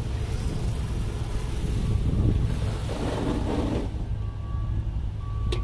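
Engine of a ride-on truck-wash machine running steadily under a rushing hiss of the washing, which drops away about four seconds in. A click and a short high beep come near the end.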